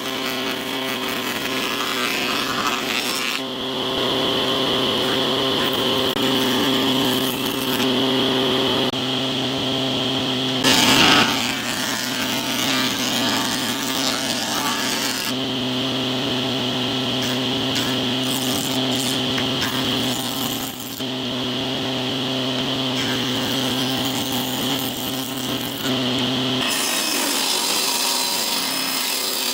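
Jointer running, its cutterhead planing pallet-wood boards as they are pushed across the bed over the steady hum of the machine's motor. There is a brief louder burst about eleven seconds in.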